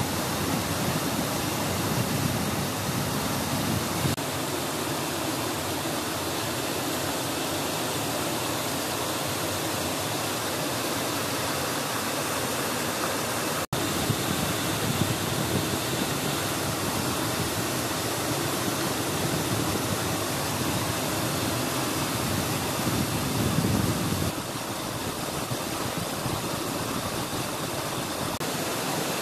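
Rushing water of the stream below the root bridge, a steady, even hiss with no pauses. It breaks off for an instant about halfway through and is slightly quieter for the last few seconds.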